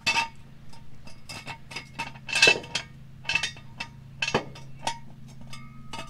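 Steel jack stand being raised and set: a run of irregular sharp metallic clinks and rattles from its ratcheting column, some ringing briefly, the loudest about two and a half seconds in.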